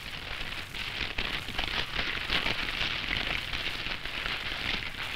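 Burning marsh reeds crackling: a steady dense crackle with many small pops throughout.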